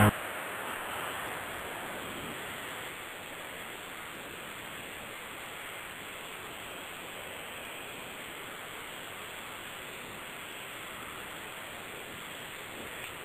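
Steady hiss of line noise, with no speech or music: the dead air of the broadcast stream after sign-off. It eases a little over the first few seconds, then holds level.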